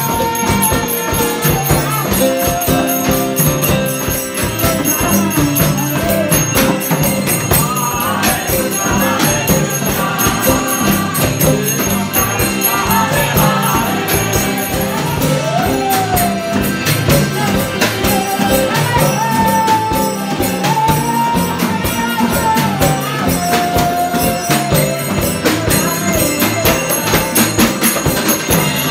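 Live kirtan music: a woman's voice chanting a melody over harmonium and strummed acoustic guitar, with hand percussion keeping a steady beat throughout.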